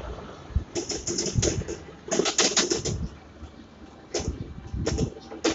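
Motorcycle tricycle's sidecar rattling as it rides: bursts of rapid clattering clicks about a second in, from two to three seconds in, and twice more near the end.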